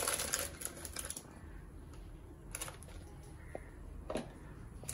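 Cooking utensils clicking and knocking on a stainless steel wok: a quick run of clicks in the first second, then a few single knocks.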